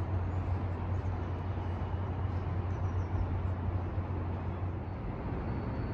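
Outdoor city background: a steady low hum under an even wash of traffic-like noise, with no distinct events.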